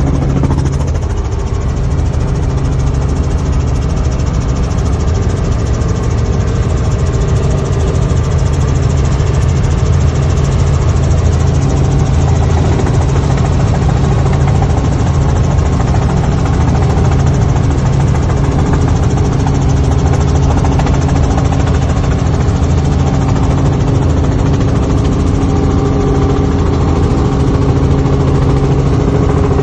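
Helicopter engine and rotor noise heard from inside the cabin: a loud, steady drone with a constant low hum that does not change.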